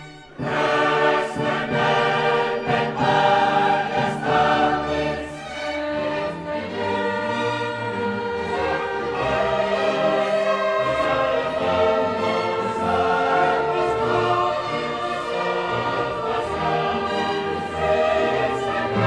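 Background music: a choir singing over an orchestra, swelling in loudly about half a second in.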